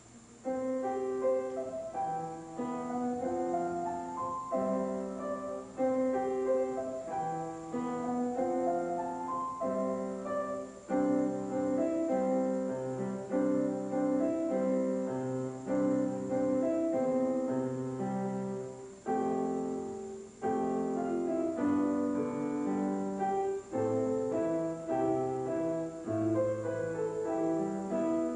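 Grand piano played solo, starting about half a second in from a hush: a continuous run of distinct notes, mostly in the middle range.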